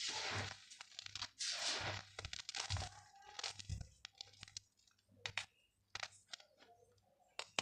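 Dried yellow mud crunching and crumbling: two longer grinding crunches, then a run of short crackles that thin out to scattered cracks after about four seconds.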